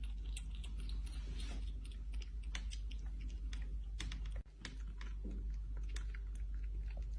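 A cat's mouth clicking and smacking as it feeds: a rapid, irregular series of small wet clicks over a steady low hum.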